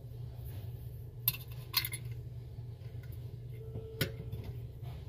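A few short, sharp clicks and clinks of hard objects, about a second in, twice near two seconds in, and once about four seconds in, over a steady low hum.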